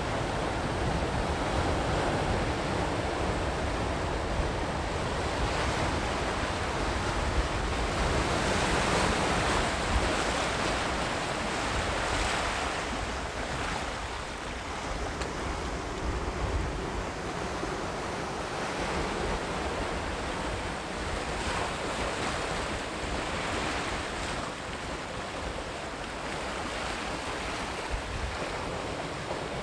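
Sea waves breaking and washing up a beach, a continuous surf that swells and eases over several seconds.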